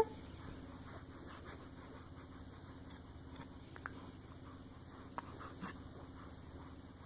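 Quiet room with a steady faint hum and a few soft, scattered clicks and rustles; a baby's short vocal sound cuts off right at the start.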